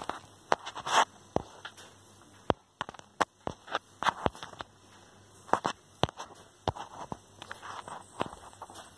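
Wood fire in a fireplace crackling, with irregular sharp pops and snaps at uneven intervals.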